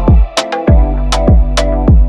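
Background music: an upbeat electronic track with a deep kick drum that drops in pitch on each hit, about twice a second, crisp percussion hits between the kicks, and held chords.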